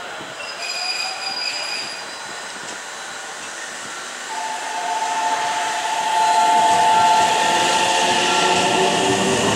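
JR Central 313-series electric train pulling out and passing close by, getting louder. About four seconds in, a steady whine from its inverter-driven motors sets in as it gathers speed.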